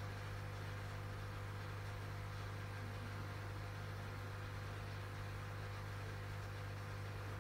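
A steady low hum over a faint even hiss.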